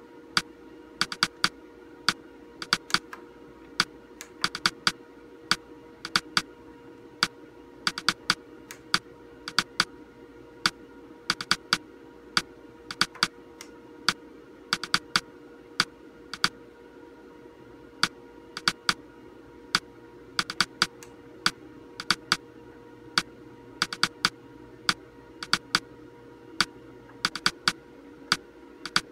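Plastic control buttons on a computer monitor clicked over and over, often two or three presses in quick succession, as the on-screen menu's settings are stepped through. A steady faint hum runs underneath.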